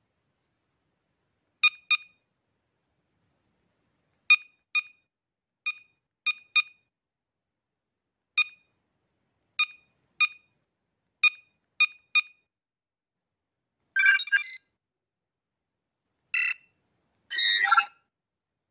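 Star Trek LCARS-style computer interface beeps from a calculator app as its keys are tapped: about a dozen short, identical chirps at an uneven pace, then three longer, warbling computer tones near the end.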